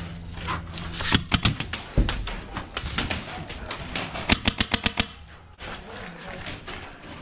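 Airsoft guns firing in rapid bursts of sharp clacks, with a dense burst about four seconds in.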